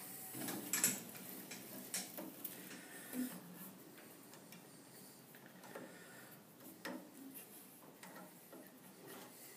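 Light, irregular clicks and taps of a dial indicator and its stand being handled and adjusted against a metal lathe.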